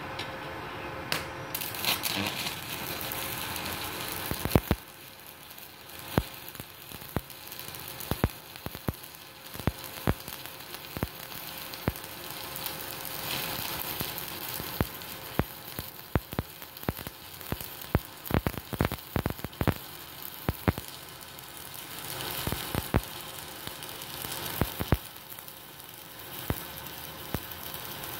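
Stick (MMA) electrode arc from a Multipro MIG-MMA/TIG 160A-SC inverter welder: a steady sizzling hiss broken by many sharp, irregular crackling pops, thickest in the middle stretch.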